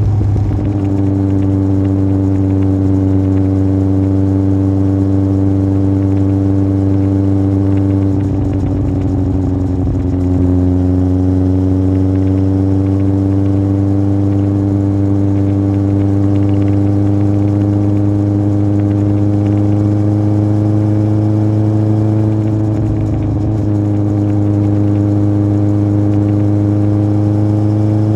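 Yamaha Fazer 1000's inline-four engine through an aftermarket MIVV exhaust, pulling under way with the revs rising slowly. The pitch dips briefly twice as it changes gear and then climbs again.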